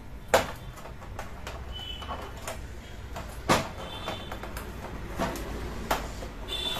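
Scattered clicks and knocks as hands and a small tool work the LED backlight strips against a TV's plastic back chassis, the sharpest about a third of a second in and about three and a half seconds in. A low steady hum runs underneath.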